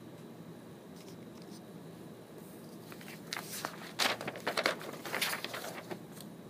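Stylus scratching and tapping on a tablet screen while handwriting: a few faint taps about a second in, then a cluster of short scratchy strokes in the second half, over a steady background hiss.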